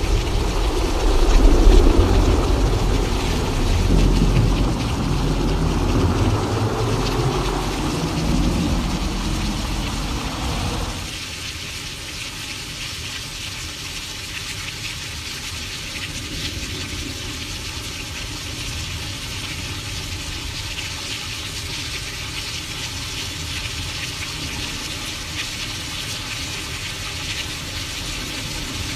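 Synthesized thunderstorm: a low rolling thunder rumble that swells and slowly dies away, cutting off abruptly about eleven seconds in and leaving a steady rain-like hiss.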